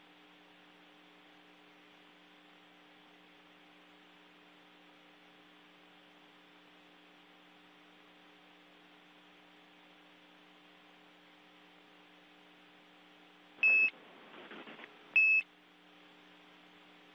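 Steady low electronic hum on the space-to-ground radio audio. Near the end come two short high beeps about a second and a half apart, with a brief faint hiss between them.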